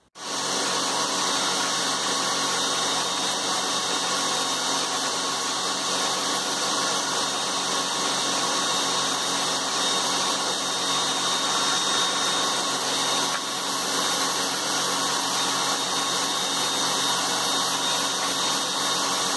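An electric power-tool motor running steadily at an even speed, cutting in abruptly at the start and holding an unchanging pitch and level.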